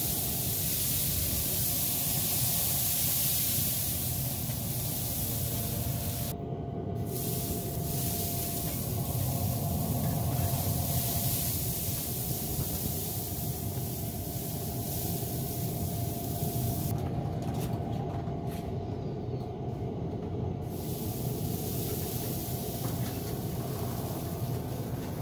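Hand-pump pressure sprayer misting liquid onto a chicken in a pellet grill: a steady hiss, broken by short gaps about six seconds in and again around seventeen to twenty seconds, over a low steady rumble.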